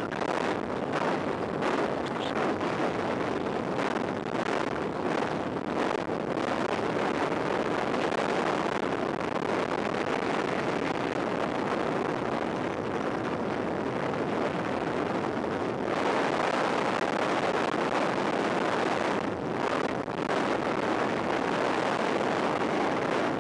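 Wind rushing and buffeting on a sunglasses camera's microphone as a mountain bike descends a paved road at speed, steady throughout and a little louder about two-thirds of the way through.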